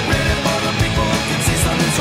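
Background rock music with electric guitar and a fast, steady drum beat.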